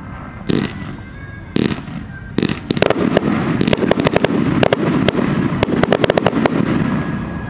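Aerial fireworks going off: three separate bursts in the first two and a half seconds, then a rapid barrage of sharp cracks and pops for about four seconds that dies away near the end.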